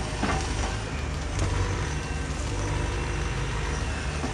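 Bobcat compact excavator's diesel engine running steadily with a low hum while it digs out a tree stump.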